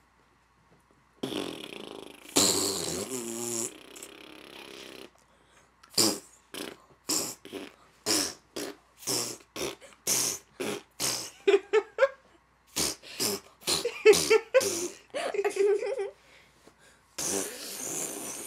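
Imitation fart noises made by people: a couple of long, drawn-out ones in the first few seconds, then a rapid string of short ones about two a second, and another long one near the end.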